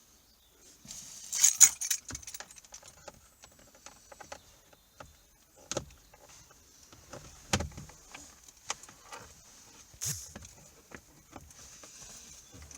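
Plastic steering column covers being handled and clipped back into place: scattered clicks and knocks, with a jangle of keys, loudest about a second and a half in.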